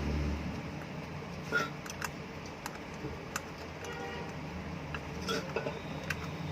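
Scattered light metallic clicks and clinks, about eight in all, some with a brief ring, from the ceiling fan's metal parts and tools being handled as the fan is reassembled. A low hum cuts out just after the start.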